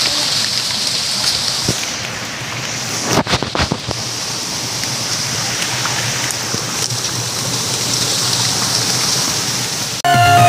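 Steady hissing outdoor noise on a forest trail, with a short cluster of knocks and bumps a little after three seconds in. Music cuts in suddenly near the end.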